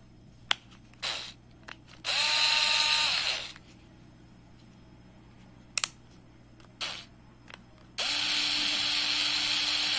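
Tonfon cordless electric screwdriver's motor running unloaded, twice in turn: a sharp click, a short burst, then a longer run of one and a half to two seconds with a whine that comes up to speed and falls off as it stops.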